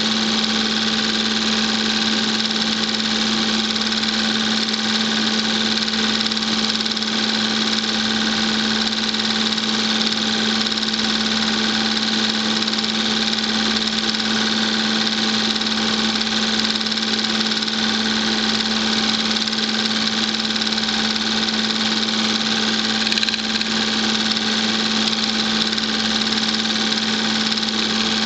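Film projector running: a steady mechanical whir with a constant low hum that does not change.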